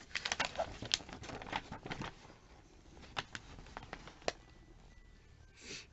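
A paper leaflet being handled and turned over: a quick flurry of crinkles and rustles, then a few scattered paper crackles and a short soft rustle near the end.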